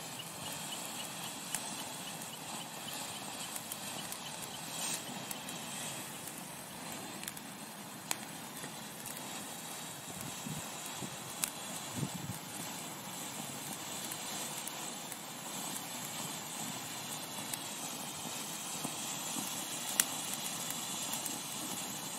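Ground firework fountain burning with a steady hiss of spraying sparks, broken by scattered sharp crackles and pops, the loudest about twenty seconds in.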